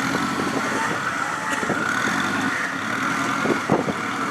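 Off-road rock crawler's engine running steadily at idle, with a steady high whine above it and a few light knocks near the end.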